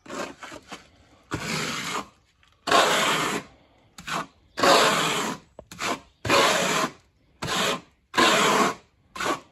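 Steel trowel scraping thin-coat silicone render, about ten strokes of half a second to a second each: the render is loaded off the board, then laid on the wall and scraped back off tight.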